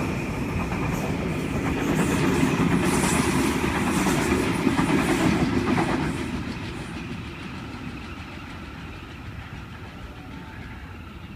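Sydney Trains Waratah (A set) electric train passing through the station. Its wheels rumble and clatter on the rails, loudest a few seconds in, then fade away over the last half as it moves off.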